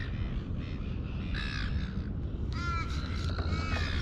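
A bird calling: a short call about a second and a half in, then a longer run of drawn-out calls from about two and a half seconds in, over a steady low rumble.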